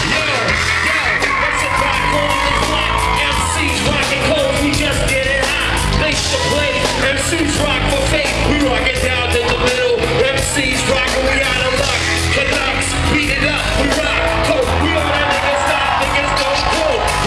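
Loud live concert music over a PA system: a heavy bass line and drum beat, with singing and yells over it.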